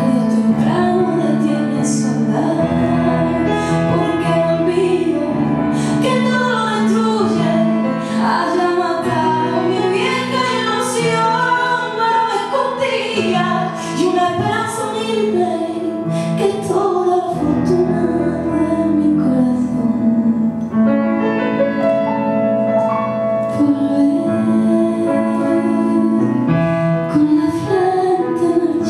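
A woman singing into a microphone with instrumental accompaniment, her voice holding long notes over steady low backing notes.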